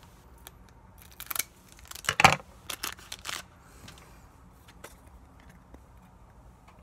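Pokémon trading cards and a foil booster-pack wrapper being handled: a cluster of short crisp rustles and snaps from about one to three and a half seconds in, the loudest a little past two seconds, then a few faint ticks.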